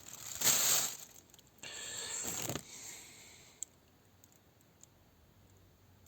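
Rustling and scraping as a packet of new steel retaining rings is handled, in two bursts over the first couple of seconds, then a single sharp click a little past three and a half seconds and faint small ticks.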